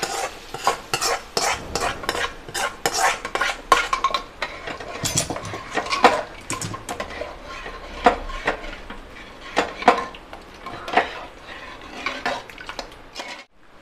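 Metal spoon scraping and clinking against a metal pan and an aluminium pressure cooker as cooked spice masala is scraped into dal and stirred in. The clinks come irregularly, several a second, and break off briefly just before the end.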